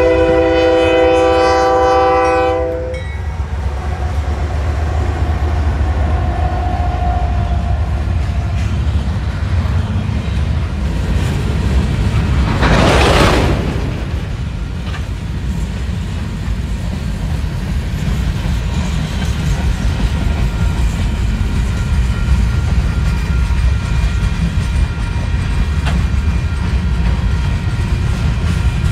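A freight locomotive's air horn sounds several notes at once and cuts off about three seconds in. Then comes the steady low rumble and wheel clatter of freight cars rolling past, with a brief rush of noise near the middle.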